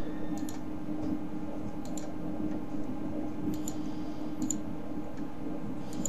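Computer mouse clicking, several short sharp clicks a second or two apart, over a steady low hum.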